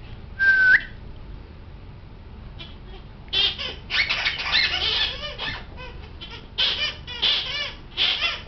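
A squeaky toy fish gives one clear squeak about half a second in, rising in pitch at its end, as a Neapolitan Mastiff puppy mauls it. From about three seconds in comes a long run of rough, wavering squeaks from the toy in the puppy's jaws, then three short bursts near the end.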